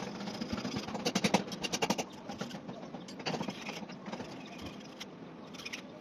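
Hand tools clicking and clinking against metal engine parts during an engine teardown, in quick irregular bursts, loudest in two spells about a second in and about three seconds in.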